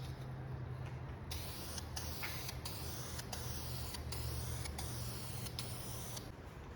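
Aerosol can of primer spraying in a run of short passes, starting about a second in and stopping near the end, with a steady low hum underneath.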